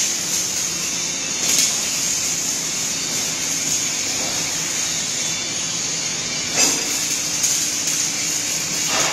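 Steady hiss and hum of industrial welding-robot machinery running, with a few short knocks, about one and a half, six and a half and seven and a half seconds in.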